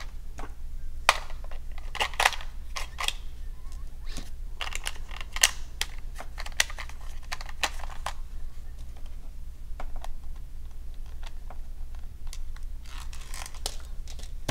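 Irregular plastic clicks and knocks as a toy RC car's battery compartment is handled: AA batteries pressed into place, the plastic battery cover fitted, and a small screwdriver worked at its screw. A steady low hum runs underneath.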